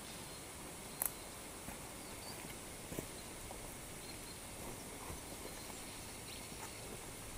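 Faint forest-trail ambience: a steady high hiss broken by a few scattered clicks and knocks. The sharpest is a double click about a second in, and a duller knock comes about three seconds in.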